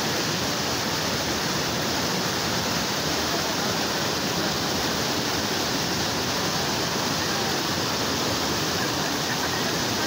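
Small waterfall and rapids pouring over rocks: a steady, unbroken rush of water.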